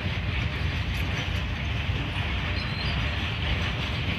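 Norfolk Southern Triple Crown RoadRailer train (highway trailers riding on rail bogies) rolling past: a steady rumble of steel wheels on rail.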